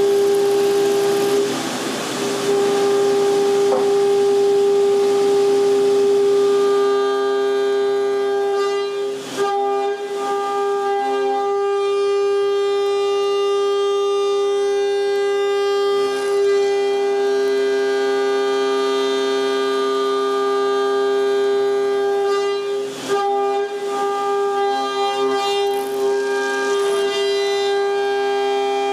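CNC mill end mill cutting a billet aluminum block under flood coolant: a loud, steady, high-pitched whine from the cutter, with brief dips three times as the tool changes pass.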